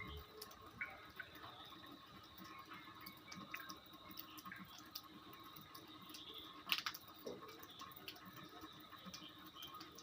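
Faint water dripping: irregular small drops, with one louder drop or click about two-thirds of the way through.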